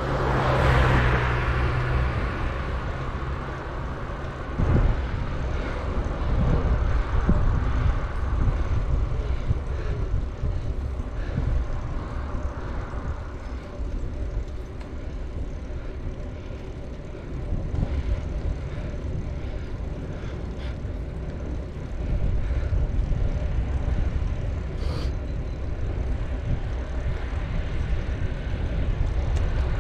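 Wind rumbling on the microphone and road noise from a moving bicycle, with a louder passing motor vehicle in the first few seconds.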